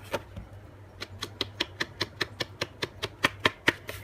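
Quick, even taps of an inking tool dabbing walnut stain and vintage photo distress inks onto the edges of paper, about five taps a second, becoming steady about a second in. A low steady hum sits under it.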